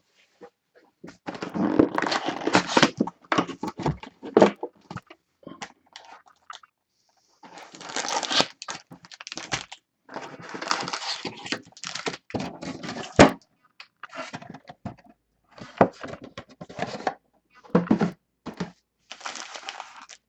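Trading-card packaging being opened by hand: plastic wrapper crinkling and tearing in irregular bursts, with short pauses between.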